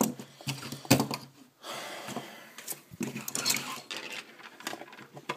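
Plastic Transformers action figures being handled: a string of light clicks and knocks from hard plastic parts as a figure is moved and set down, with some rubbing in between.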